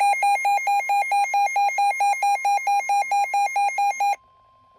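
Weather radio receiver's alert alarm beeping rapidly, about five pulses a second, set off by a severe thunderstorm warning. It cuts off suddenly about four seconds in, leaving a faint steady warning tone near 1 kHz.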